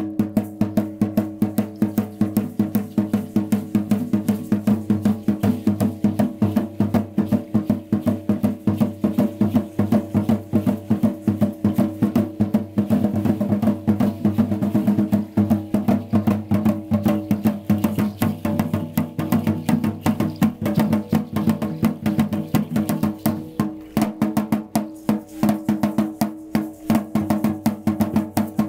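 Drum for Aztec-style dancing, beating a fast, steady rhythm of about three to four sharp strokes a second that starts suddenly.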